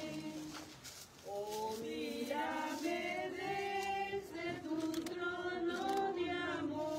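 A small congregation singing a hymn unaccompanied, with a short pause for breath about a second in before the next line.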